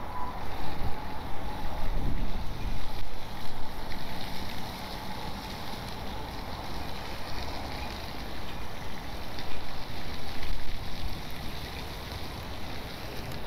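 Gusty wind buffeting the microphone, a rumbling rush that swells and eases. The gusts are strongest in the first few seconds and again about two-thirds of the way through.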